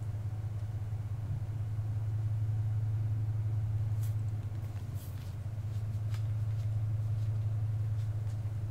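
A steady low hum, with a few faint clicks about halfway through.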